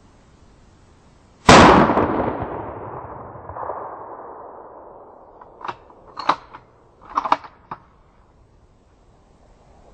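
A single hunting-rifle shot about a second and a half in: a sharp crack followed by a long rolling echo that fades over about three seconds. Several short, sharp clicks follow a few seconds later.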